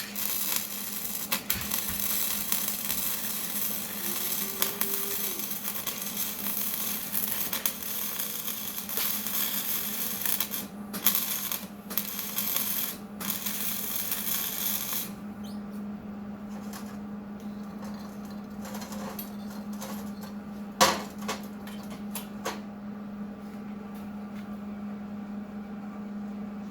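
Electric welding arc crackling and hissing steadily on the steel winch spool part for about fifteen seconds, with three short breaks near the end of the run; then the arc stops, leaving a steady low hum and a few sharp clicks.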